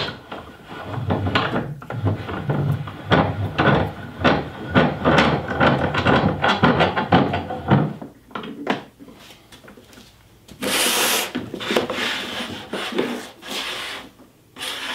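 Cast-iron bench vise being wound shut: the threaded screw and steel handle bar click and rattle quickly for about seven seconds as the wooden jaws close. About ten seconds in there is a short scraping rub, then more rubbing, as a wooden board slides across the plywood tabletop.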